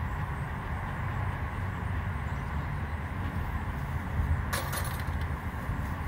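A steady low rumble, with one sharp wooden knock about four and a half seconds in as the hive boxes are handled.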